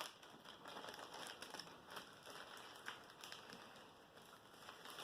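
Near silence with faint crinkling and rustling from a handwritten paper note being handled, and a few soft ticks.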